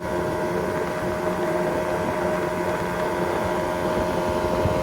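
Boat motor running at a steady speed: an even drone with a constant pitch, over low rumbling water and wind noise.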